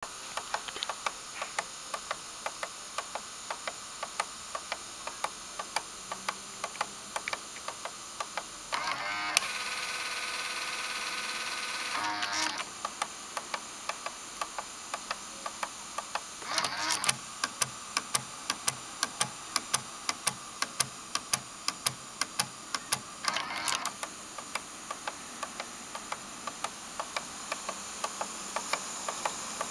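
Toyota Altezza factory cassette deck mechanism clicking over and over, about two to three sharp clicks a second, with a steady whir lasting a few seconds about a third of the way in and short whirring bursts later. This is the abnormal noise the deck began making after sitting unused for a while.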